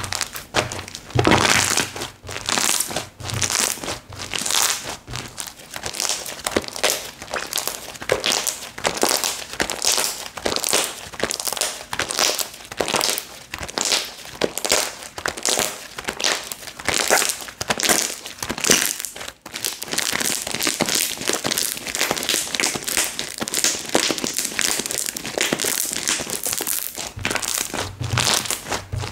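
Slime being squeezed, pressed and stretched by hand, making a dense, irregular run of crackling, squishing noises, several a second.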